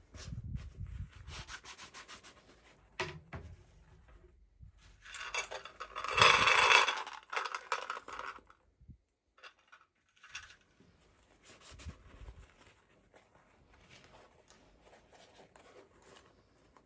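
Hands handling and opening toy packaging: irregular rubbing, scraping and rustling, with a longer, louder rasping rub about five to eight seconds in, then quieter handling.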